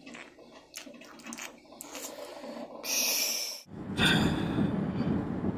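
Faint small clicks, then a short hissing rush about three seconds in. From about four seconds in comes the steady low rumble of a car's cabin.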